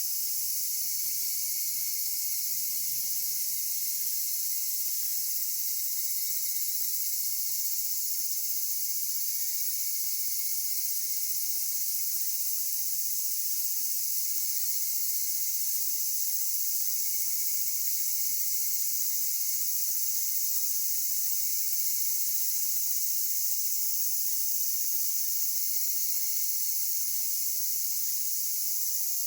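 Dense, steady chorus of insects singing, high-pitched and unbroken, with no single call standing out.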